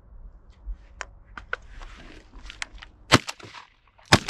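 Two 12-gauge shotgun shots about a second apart, the second the loudest, taking a double on decoying geese. A few fainter short, sharp sounds come in the first half.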